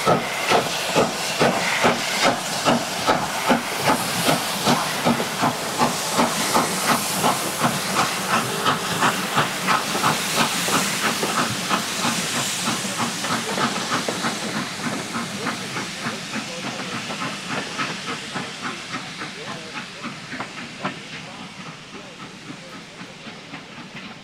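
Steam locomotive working a passenger train away with a steady beat of exhaust chuffs over the hiss of steam from its cylinder drain cocks. The beats quicken as it gathers speed and fade as it draws away.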